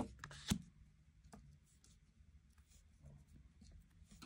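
Tarot cards being handled on a table: a sharp tap about half a second in, then a few soft clicks and light rubbing of card against card.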